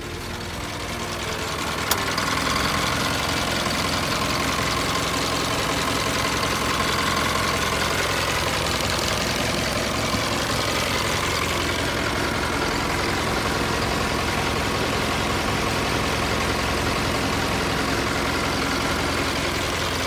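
Isuzu Elf truck's engine idling steadily with its cab tilted open, getting louder over the first two seconds. A single sharp click about two seconds in.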